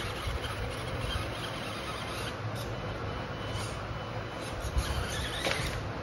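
Toy RC off-road SUV's small electric motor and gears running hard while its tyres spin and scrape against a plastic building-block ramp as it strains to climb, with a couple of sharp knocks near the end.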